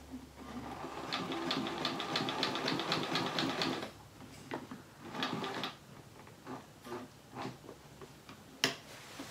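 Sewing machine quilting through a thick quilt, running in a steady rhythm of about five stitches a second for a few seconds, then stopping and starting in short bursts. A single sharp click near the end.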